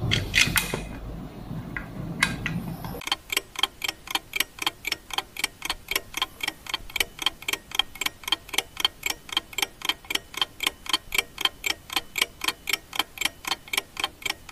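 A few irregular knocks of tools on the pump housing, then, starting about three seconds in, a steady, perfectly even ticking of about four ticks a second: a clock-tick sound effect laid over the fast-forwarded part.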